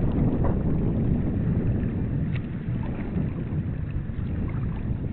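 Wind buffeting the microphone and water rushing past the hull of a sailboat under sail: a steady low rumble that eases a little about halfway through.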